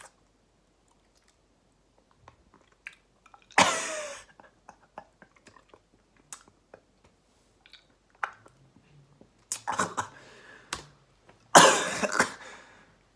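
A man crunching and chewing Takis rolled chili tortilla chips, broken by a few coughs; the loudest cough comes near the end.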